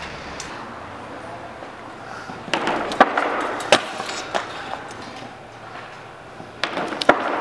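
Stunt scooter wheels rolling on concrete, with several sharp clacks of the deck and wheels striking the ground as tricks are landed.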